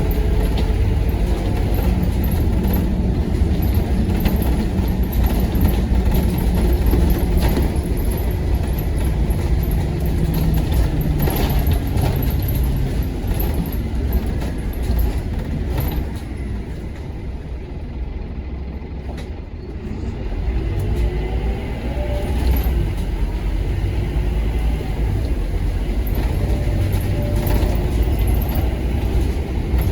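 Scania K230UB bus's five-cylinder diesel engine running steadily under way, with scattered clicks and rattles. About halfway through it quietens for a few seconds, then picks up again with a rising pitch as it pulls away.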